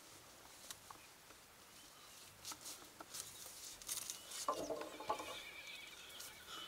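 Faint rustling and scattered light knocks from a wooden tent pole being handled inside a woven yak-hair tent, with a short, louder cluster of knocks about four and a half seconds in.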